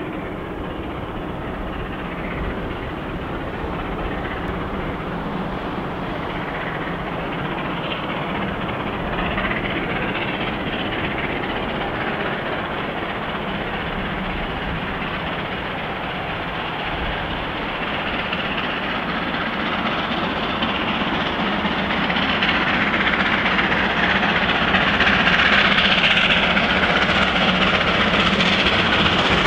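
Victorian Railways R class 4-6-4 steam locomotive R707 working a passenger train, its exhaust and running noise growing steadily louder as it approaches.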